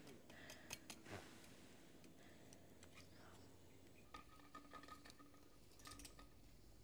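Near silence with scattered faint clicks: metal tongs tapping and scraping on a wire grill as charred cassava roots are turned over campfire embers.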